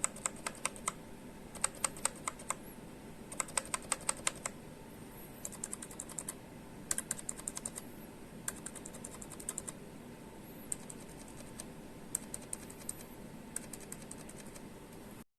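Typing on a Redragon K550 Yama mechanical keyboard with Outemu switches: quick runs of keystroke clicks broken by short pauses. The sound cuts off suddenly near the end.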